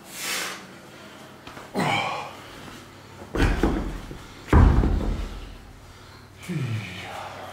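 Two heavy fixed chrome dumbbells set down hard onto a rubber gym floor at the end of a set of dumbbell presses, two deep thuds a little over a second apart. A lifter's sharp exhale and short falling grunts come before and after.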